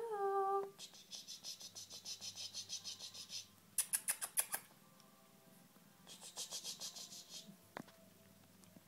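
Quick raspy strokes, about five a second, in three bouts, the middle one loudest and sharpest: a cat licking fur while grooming.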